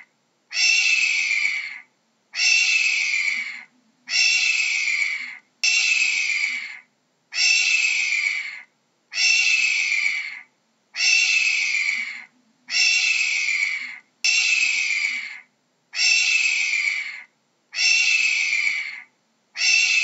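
A hawk screaming over and over: about a dozen harsh screeches, each well over a second long and falling slightly in pitch, at an even pace of roughly one every two seconds.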